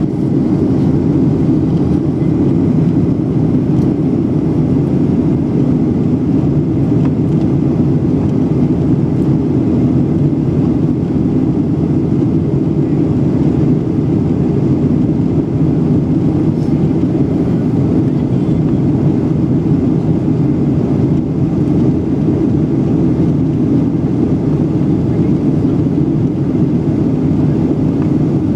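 Steady cabin noise inside a Boeing 737-800 in flight, heard from a window seat over the wing: an even, low rush of airflow and CFM56 turbofan drone that holds at one level throughout.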